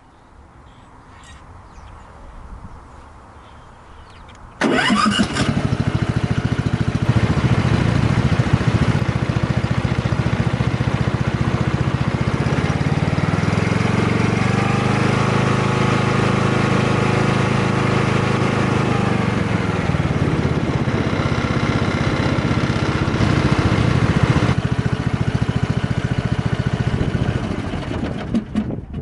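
Cub Cadet XT2 LX42 EFI riding mower's fuel-injected engine started by push button, catching at once about five seconds in and then running. Partway through it speeds up with the throttle, then slows back down, and it is shut off near the end.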